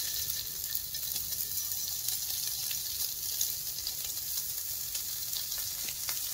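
Hot oil on a nonstick tawa sizzling steadily as halved hard-boiled eggs are laid into it one by one, with scattered small crackles.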